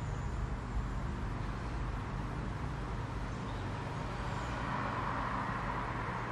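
Steady low rumble with an even hiss of background noise, the hiss swelling slightly near the end.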